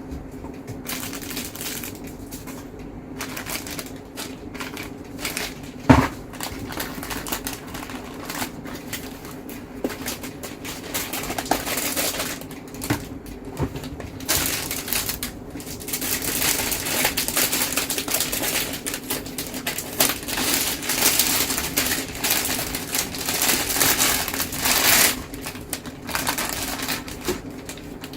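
Hands handling PC parts and their packaging: rustling plastic and cardboard with small clicks and taps, and one sharp knock about six seconds in. The crinkling grows denser and louder in the second half.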